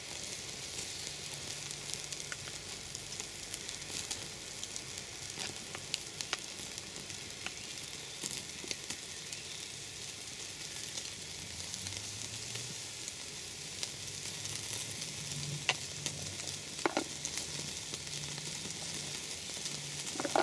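Pork sizzling on a grill rack over an open wood fire: a steady frying hiss with many small sharp crackles and pops, a few louder ones near the end.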